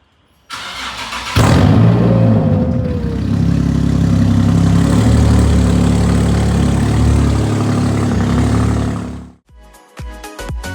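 Infiniti G37S's 3.7-litre V6 cold-started through a loud aftermarket exhaust: the starter cranks for about a second, the engine catches with a rev flare that falls away, then it runs at a loud, steady high idle. It cuts off suddenly near the end, and electronic background music with a steady beat takes over.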